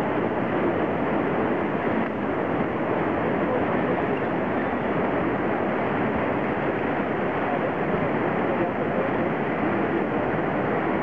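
Whitewater rapids of the Kern River rushing steadily.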